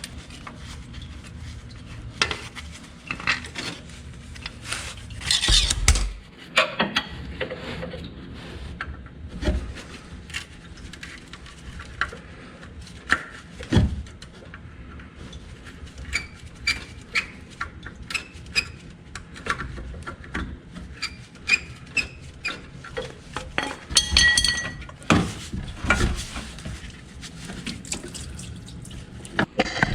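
Hand tools clinking and clanking on metal engine parts during disassembly: a scattered run of sharp knocks and clinks, with a brief ringing metal clink about 24 seconds in.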